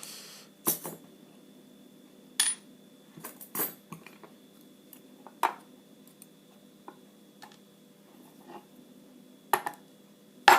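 Small metal lock parts clicking and clinking as a padlock is taken apart by hand: about ten separate sharp taps spread irregularly, the loudest near the end.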